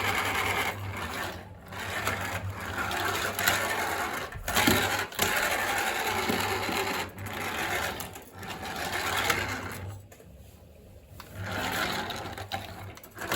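Small electric motor and gears of a remote-control toy car whirring in spurts as it drives, dropping away briefly about ten seconds in.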